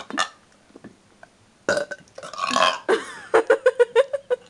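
A person burping loudly: a short burp at the start, then about two seconds in a long burp that breaks into a rapid stuttering run of short croaks near the end.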